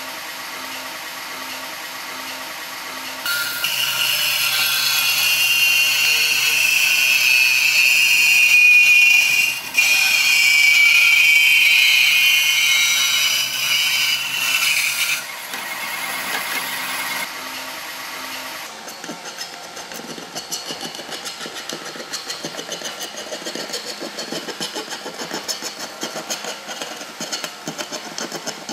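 Bandsaw motor running, then its blade cutting through a cement-filled steel raised access floor panel with a loud, high rasping screech that breaks off briefly about halfway. The saw stops at about 18 seconds. It is followed by quick, repeated scraping strokes of a hand file dressing the cut edge.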